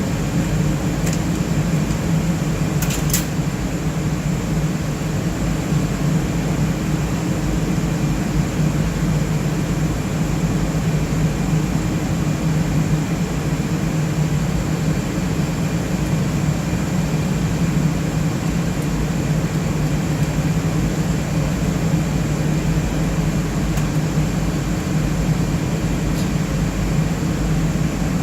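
Steady whir of the HPE BladeCenter c7000 enclosure's cooling fans running, with a couple of light clicks about three seconds in.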